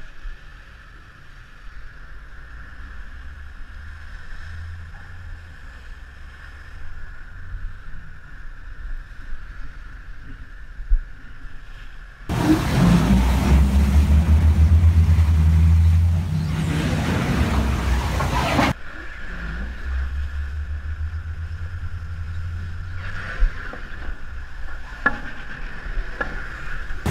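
Low diesel engine rumble of a pilot boat holding alongside a ship, with a steady hum and the wash of sea and wind. For about six seconds in the middle a louder rush of wind and water noise swells over it, then drops back.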